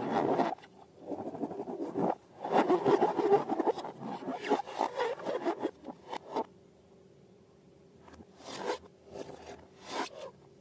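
Rubbing and scraping noises from balloons and slime being handled, coming in uneven bursts with a quiet pause of a couple of seconds past the middle.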